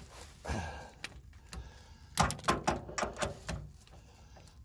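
Metal clinks and knocks of a socket on an extension bar being fitted onto a bolt inside a vehicle's steel crossmember, a handful of sharp knocks coming about two seconds in.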